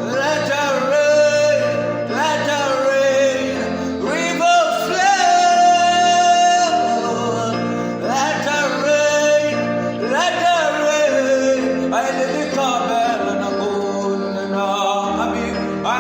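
Gospel song: a solo voice singing phrases that slide between notes over a steady instrumental backing, with one long held note about five seconds in.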